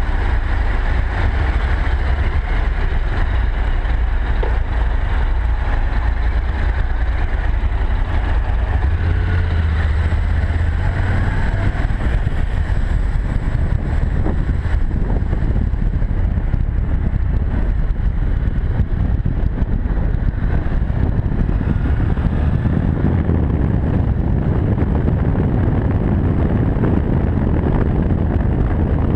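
Honda NC700X motorcycle's parallel-twin engine running as the bike pulls away and gathers speed. In the second half, wind rush on the camera's microphone builds as the speed rises.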